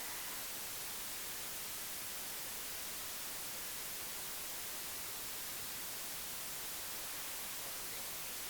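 Steady, even hiss like static, with no other sound standing out.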